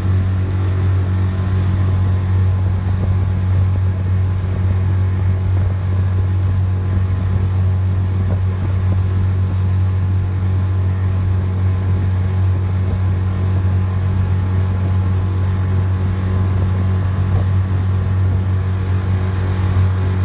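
Motorboat's outboard engine running steadily at speed while towing an inner tube, a constant low drone that holds the same pitch throughout.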